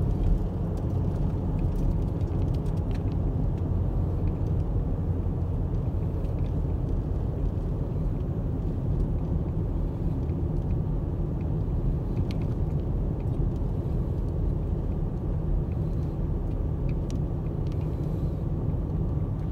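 Steady low road and engine rumble of a car, heard from inside the moving cabin, with a few faint ticks now and then.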